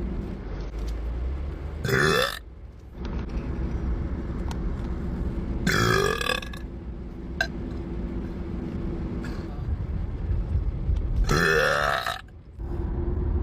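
A woman burping loudly three times: about two seconds in, around six seconds in, and a longer one near the end, each rising in pitch. A steady low hum lies underneath.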